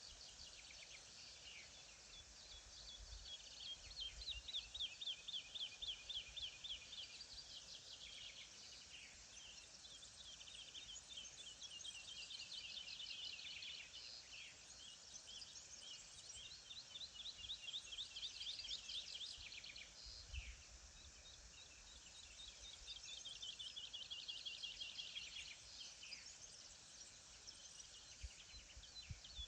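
Songbirds singing: high, fast trilled phrases, each a couple of seconds long, following one another over a faint steady hiss.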